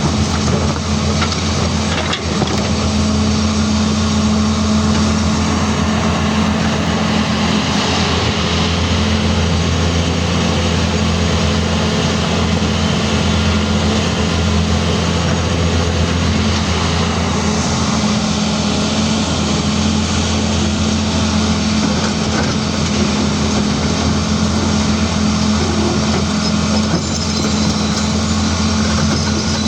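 CAT 336D hydraulic excavator's diesel engine running steadily, a constant low hum with a broad mechanical clatter over it.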